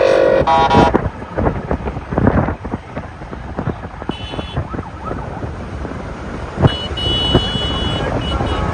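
Car horns honking in a slow-moving convoy. Then wind buffets the microphone over the traffic noise, with short high-pitched tones about four seconds in and again about seven seconds in.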